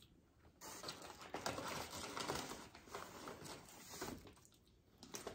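A paper fast-food takeout bag rustles and crinkles as a hand rummages inside it. The rustling starts about half a second in and dies away near the end.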